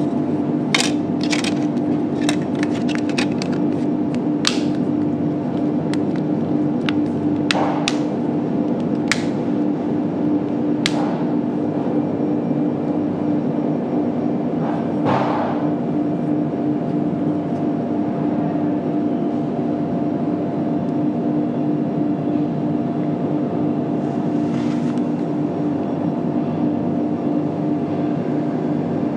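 Hard plastic clicks as a smartphone's snap-on plastic back cover is fitted and pressed into place: a quick run of sharp clicks in the first few seconds, then scattered clicks up to about eleven seconds in. A steady loud hum runs under it all.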